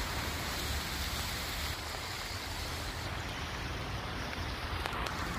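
Steady noise of wind and rain, with a low rumble from wind buffeting the phone's microphone.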